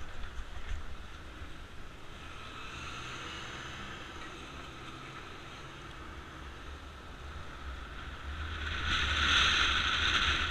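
Motorcycle riding along, its engine running under a rush of wind on the camera's microphone, getting louder about eight seconds in.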